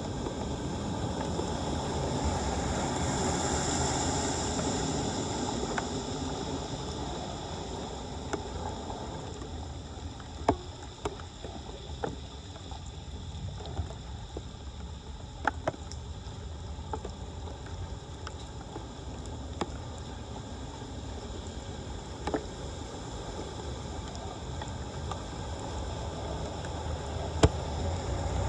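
Floodwater rushing steadily through a flooded street toward a storm drain, with scattered sharp knocks and clicks.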